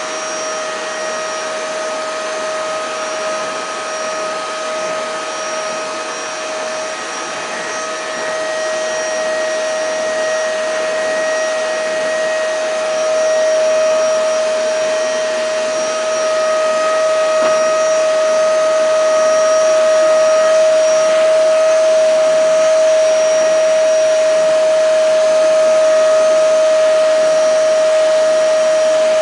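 Vacuum cleaner running steadily, its motor giving a high whine over a rushing air noise, growing a little louder about halfway through.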